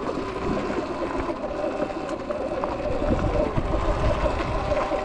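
Sur Ron electric dirt bike rolling slowly over a dirt and gravel trail: tyres crunching on the loose surface, with a faint steady whine from the drive.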